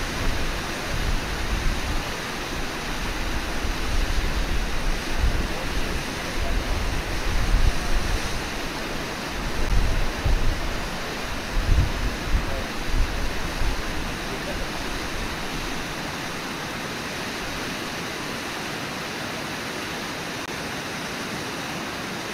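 Steady rushing of whitewater pouring over Brooks Falls. Irregular low rumbles sit under it for the first fifteen seconds or so, then stop, leaving only the even rush of water.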